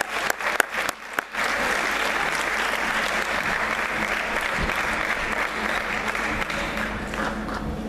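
Crowd applauding: a few sharp separate claps near the start, then dense, steady applause that eases slightly near the end.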